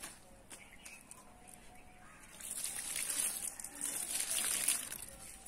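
Water poured by hand onto a heap of vegetable peels and scraps in a shallow soil pit, splashing for about two and a half seconds, starting a little over two seconds in.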